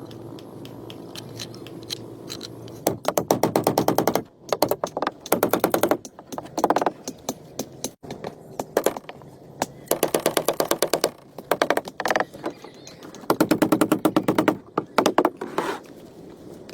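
A power tool running in about five short bursts, each about a second of rapid, even clatter, with brief pauses between.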